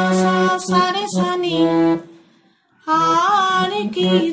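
A woman singing a phrase of a Bengali song's melody, accompanied by a harmonium holding steady notes. The music breaks off for about a second near the middle, then picks up again.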